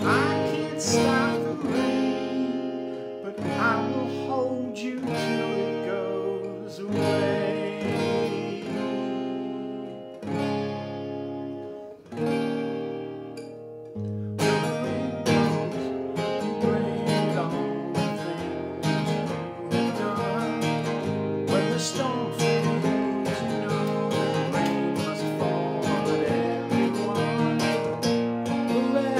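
Cutaway acoustic guitar being played: lighter, broken-up picking through the first half, then steady rhythmic strumming from about halfway through.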